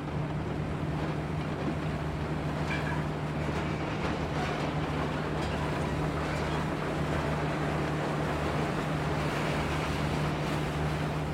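Bulldozer's diesel engine running steadily, a constant low hum over an even rushing noise.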